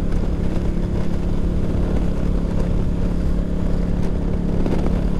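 Yamaha V-Star 1100 Classic's air-cooled V-twin engine running steadily at highway cruising speed, with wind and road noise.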